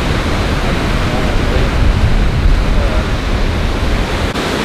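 Steady rush of water pouring over a concrete dam's spillway, with wind rumbling unevenly on the microphone.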